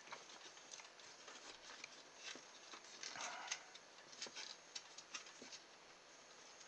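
Faint scattered clicks and rustles of hands working a nylon cable tie around wires inside an opened plastic cordless drill housing.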